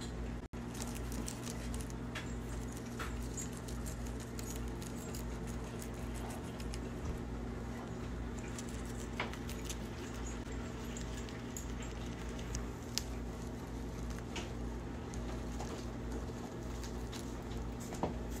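Guinea pig chewing bok choy leaves: a run of small, quick crunching clicks as it bites and chews, over a steady low hum.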